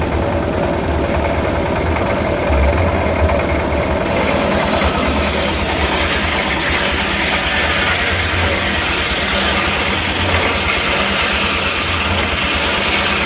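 Engine-driven circular sawmill running steadily with a pulsing low rumble; about four seconds in, a loud hiss starts suddenly and carries on as the blade cuts into wood.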